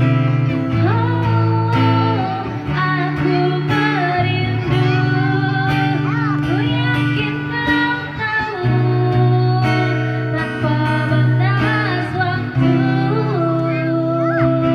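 A song with a voice singing held, wavering notes over a plucked guitar accompaniment.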